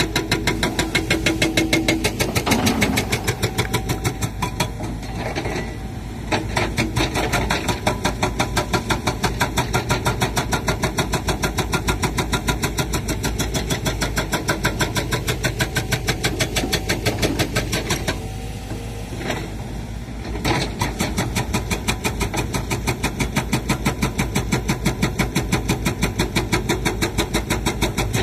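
Sumitomo SH130 excavator's diesel engine running under digging load with a fast, even pulsing beat. The engine sound eases briefly twice, around five seconds in and again around nineteen seconds in.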